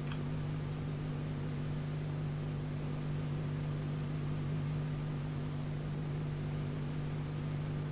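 Steady low electrical hum with an even hiss, the background noise of an old home-recorded soundtrack; nothing else stands out.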